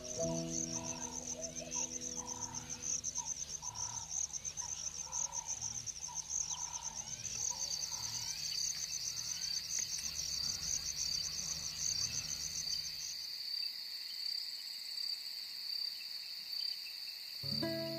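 Evening chorus of crickets trilling steadily. A high pulsing trill gives way about seven seconds in to a slightly lower one.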